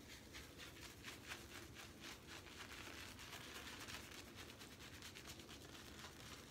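Boar-bristle shaving brush swirled and scrubbed on shaving soap to load it with lather: faint, rapid scratchy strokes, about three or four a second.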